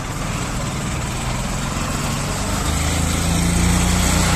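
Auto-rickshaw engine running close by, growing louder about three seconds in as it moves off.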